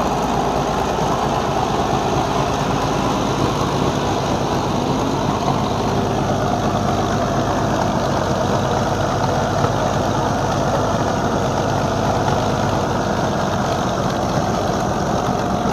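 M47 Patton tank's 12-cylinder engine, of more than 800 horsepower, running loud and steady at an even speed.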